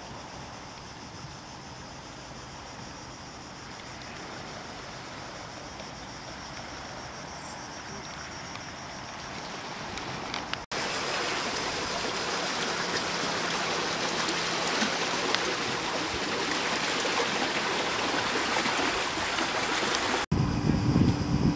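Steady rushing of flowing water, with no rhythm or pitch, louder after about the halfway point. Near the end a louder, deeper rumble cuts in.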